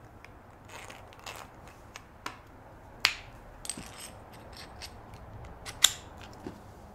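Small metallic clicks and taps of a T-handle hex key and screw against an aluminium jig arm as the screw is fitted and tightened into a T-nut. Two sharper clicks stand out, one about three seconds in and one near the end.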